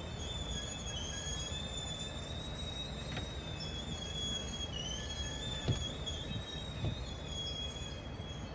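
Freight train cars rolling slowly past: a low rumble under a continuous, wavering high-pitched wheel squeal. Two short sharp clunks come a little past the middle, about a second apart. Heard from inside a car's cabin.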